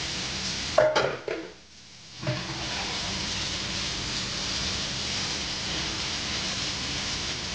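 Dishes clinking and clattering at a stainless-steel kitchen sink about a second in, over a steady hiss that drops out briefly and comes back.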